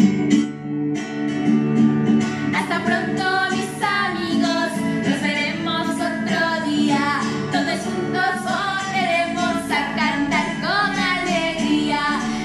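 A song: a strummed guitar accompaniment, with a woman's voice coming in singing about two seconds in.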